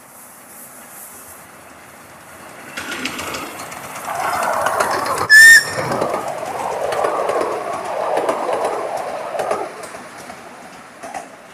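Miniature-railway steam locomotive and its passenger cars running past close by, with the clatter of wheels on the rails growing loud for about six seconds and then fading. A short, very loud whistle blast sounds about five seconds in.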